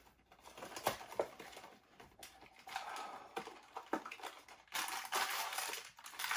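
A small cardboard blind box and its foil-wrapped packet being opened by hand: scattered clicks and taps, then denser crinkling and rustling near the end.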